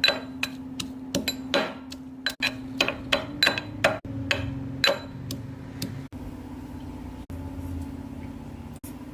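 Sharp knocks and clinks of kitchen work, several a second for the first five seconds and then only a few, over a steady low hum.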